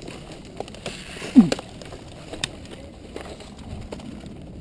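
Brush rustling and small knocks of gear as a person moves through undergrowth carrying an airsoft rifle. About a second and a half in comes a short grunt that drops in pitch, the loudest sound here.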